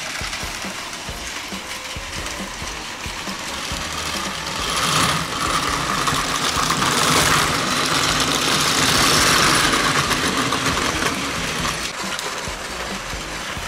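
Battery-powered Plarail toy trains whirring along plastic track, a steady motor-and-gear whir. The whir grows louder from about five seconds in until about eleven seconds, as a train runs close by.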